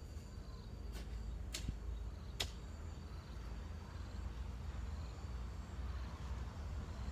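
Insects chirping in a faint high, broken pattern over a steady low rumble, with three sharp knocks in the first two and a half seconds, the last the loudest, from a garden hoe striking the soil.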